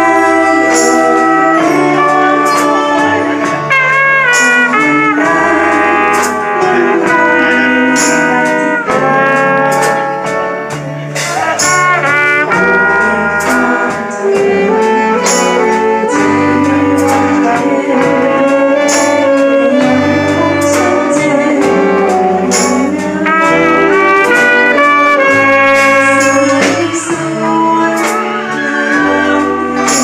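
Alto saxophone playing a melody with a band, with bass notes underneath and regular cymbal strikes.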